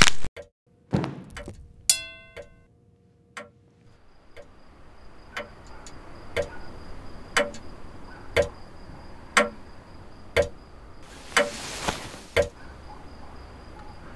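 Clock ticking steadily about once a second, over a faint high steady whine. A few soft knocks and a short ringing tone come before the ticking begins.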